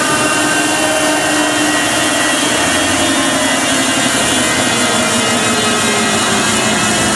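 Hardcore techno breakdown playing loud through a large PA, with no kick drum: sustained synthesizer tones held over a dense, jet-like wash of hiss.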